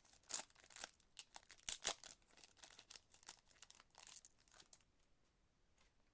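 Trading card pack wrapper being torn open and crinkled: a dense run of sharp crackles that stops about five seconds in.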